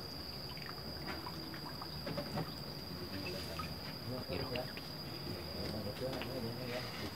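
Insects droning in a steady, unbroken high-pitched whine, with faint clicks and distant voices underneath.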